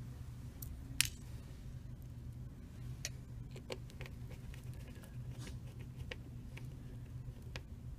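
Scattered small clicks and taps from hands working a smartphone's plastic housing and small tools during reassembly, with one sharper click about a second in, over a steady low hum.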